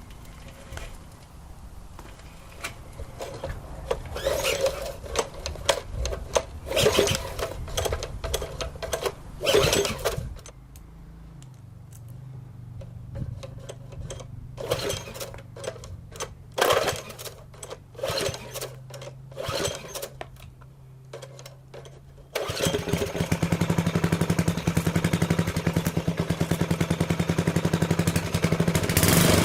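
Old small single-cylinder engine, primed with a splash of gas, being cranked in several bursts of attempts that sputter without catching. About 22 seconds in it fires and keeps running with a steady rapid beat.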